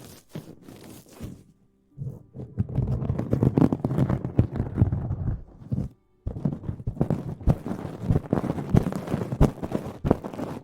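Close-miked ASMR rustling and scratching, a dense crackle of small clicks. It starts about two seconds in, breaks off briefly about six seconds in, then carries on.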